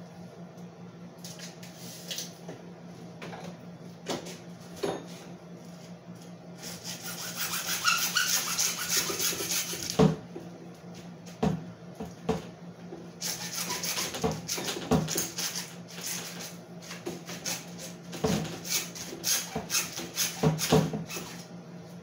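Hacksaw cutting through PVC pipe in fast back-and-forth strokes, in two spells with a few knocks of the pipe in between.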